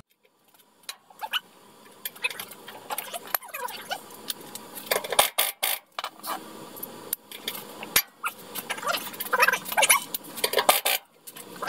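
Rapid, irregular metallic clinks and clatter of hand tools and air-tool fittings being handled, in sped-up footage.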